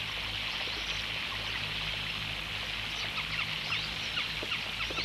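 Outdoor ambience of many small birds chirping in quick short notes over a steady rushing hiss.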